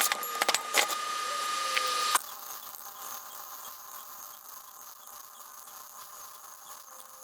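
MIG welder arc crackling and hissing with sharp pops, which cuts off abruptly about two seconds in, leaving a fainter steady background.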